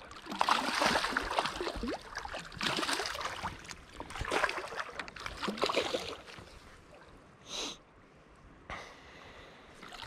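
Water splashing and sloshing in several loud bursts over about the first six seconds, followed by two short splashes later on.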